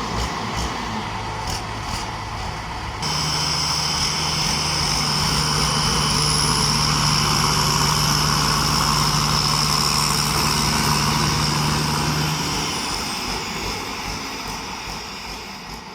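Rice combine harvester engine running steadily, with a steady high whine over it. The sound changes abruptly about three seconds in and fades out near the end.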